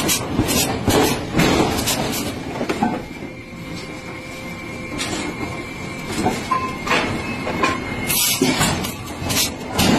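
Hot-forged steel train-wheel blank and steel tongs and bars clanking and scraping against each other and on steel plates, with sharp metallic knocks. It goes quieter in the middle, with a faint steady ringing or squeal, then the knocking picks up again near the end.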